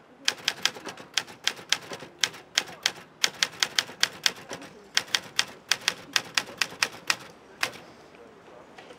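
Portable typewriter being typed on: keys striking in quick, uneven runs of sharp clacks, stopping near the end.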